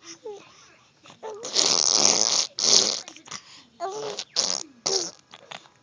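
Imitation fart noises made by a person: a run of loud, noisy blowing bursts, the longest about a second, broken by short squeaky vocal sounds.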